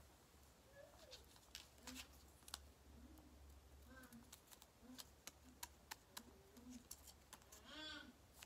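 Near silence, with faint scattered clicks and taps from a glue stick and paper being handled.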